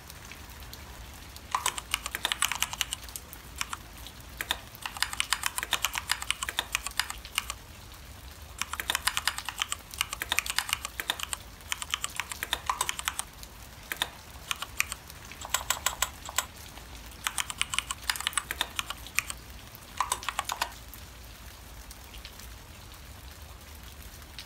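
Typing on a computer keyboard: quick runs of keystrokes broken by short pauses, stopping a few seconds before the end.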